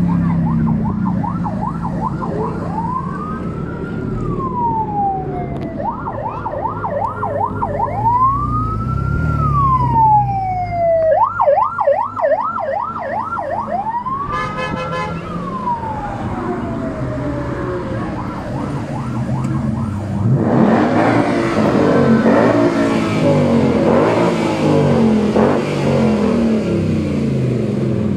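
An emergency-vehicle siren switches back and forth between a slow rising-and-falling wail and a rapid yelp, over the low sound of car engines running in slow traffic. About twenty seconds in the siren stops and sports car engines rev loudly again and again, their pitch sweeping up and down.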